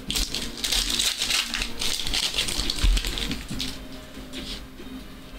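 Trading cards and a foil pack wrapper being handled up close: a rapid run of papery crinkling, rustling and clicking as cards slide against one another. A soft thump comes about three seconds in.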